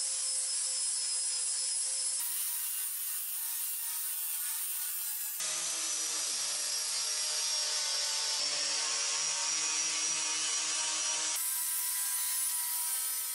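Angle grinder with an abrasive disc grinding the steel blade of an old cleaver, a steady high whine over harsh grinding noise, removing rust and patina and shaping the blade. The pitch of the whine jumps abruptly a few times.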